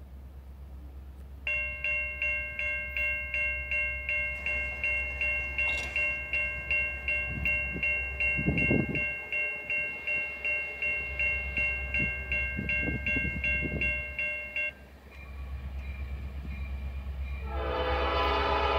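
Railroad grade-crossing bell ringing at about three strikes a second, cutting off suddenly about three-quarters of the way in. Near the end a locomotive horn starts to sound as the train approaches.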